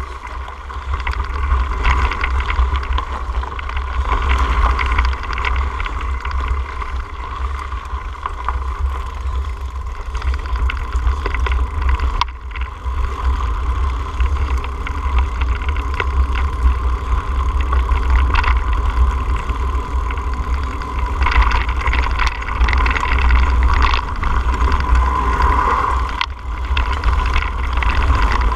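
Mountain bike riding over a rocky dirt trail, heard through a bike-mounted camera: a steady wind rumble on the microphone with constant rattling and knocks from the tyres and bike over the rocks.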